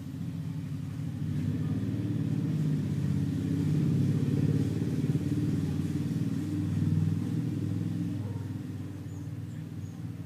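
Persian cat purring loudly, a deep rumble like a small motor or idling engine, swelling to its loudest in the middle and then easing off.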